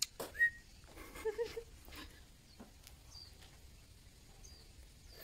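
Quiet outdoor ambience with a few faint, short, high bird chirps. There is also a brief pitched call about a second in and a few light clicks.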